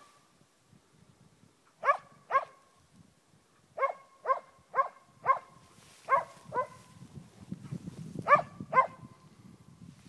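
A moose-hunting dog barking at a moose it holds at bay: about ten sharp barks, mostly in pairs half a second apart, with short pauses between the pairs.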